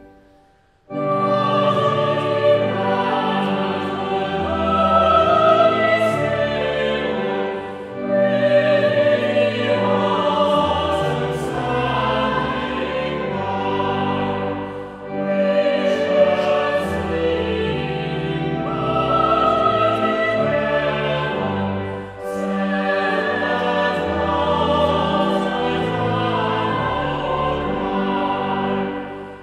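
A choir singing a carol with instrumental accompaniment, starting after a brief silence just under a second in and going on in phrases with short breaks about every seven seconds.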